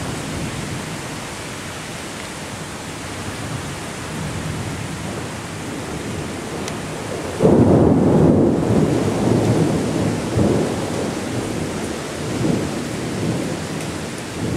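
Thunderstorm: steady rain, then a sudden loud thunderclap about seven seconds in that rumbles on and fades over several seconds with further swells.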